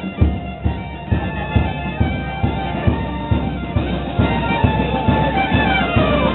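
A town wind band of clarinets, saxophones and tuba playing a lively dance tune over a steady bass beat, with a falling run of notes near the end.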